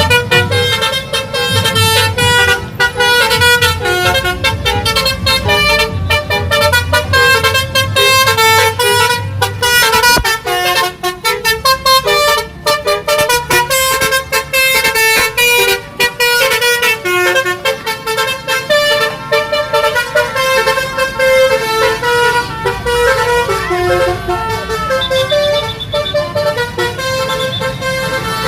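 Bus telolet horns: multi-tone musical air horns on buses playing fast melodies of short, stepped notes, loud and without pause, over a low engine rumble.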